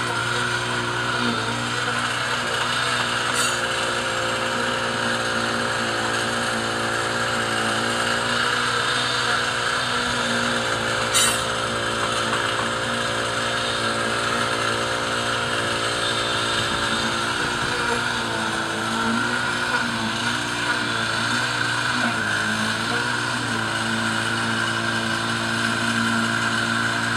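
Concrete mixer truck's diesel engine running steadily, its pitch dipping and rising a few times in the second half, with two sharp clicks.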